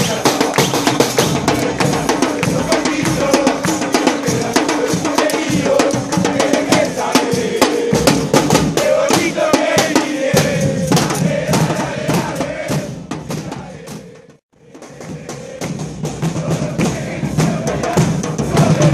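Football supporters chanting in unison to rapidly beaten bass drums (bombos). The sound fades and cuts out briefly about fourteen seconds in, then picks up again.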